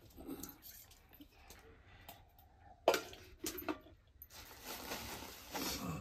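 Dishes being handled: scattered light clinks and knocks, with one sharp knock about three seconds in, then a stretch of rustling near the end.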